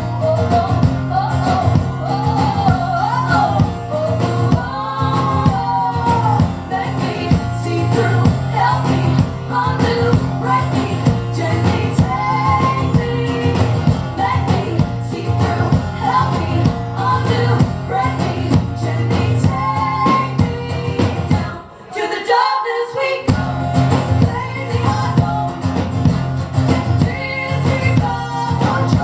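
Live rock band playing a moody song, with wordless singing gliding over guitars and a steady low bass. About three-quarters of the way through, the band drops out for about a second, then comes back in.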